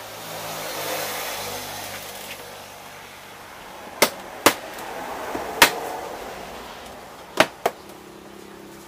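Five sharp plastic clicks and snaps as the Motorstar ER150N scooter's front fairing panels are pried loose from their clips, starting about four seconds in, the last two close together. Before them, a rushing noise swells and fades.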